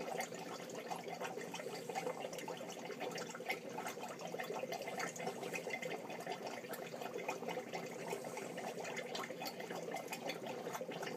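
Steady trickling and bubbling of aquarium water, with many fine crackles over a faint steady hum.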